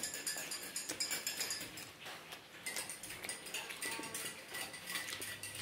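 Faint, irregular light clinks and ticks of a spoon stirring in a glass of tea.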